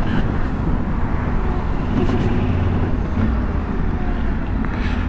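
Yamaha Ténéré 700's parallel-twin engine running steadily as the motorcycle rides through city traffic, mixed with wind and road noise.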